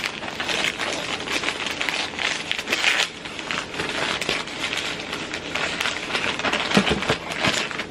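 Paper crinkling and rustling with many quick little crackles as a wrapped gift is opened by hand, with a couple of light knocks near the end.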